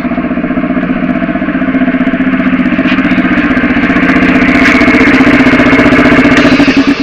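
Piston air compressor running loudly with a steady hum and a fast, even pulsing, then switched off and cutting out abruptly near the end.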